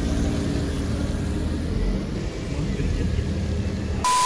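Steady low road and engine rumble heard from inside a moving car. About four seconds in, a loud steady beep with a hiss behind it cuts in abruptly.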